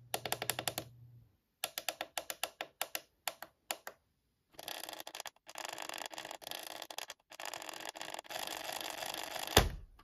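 Plastic buttons on a Sharp digital alarm clock clicking in quick runs of about six clicks a second. Then, sped up, the clicks merge into a dense rattling stream with a few short breaks. A single loud hit comes near the end.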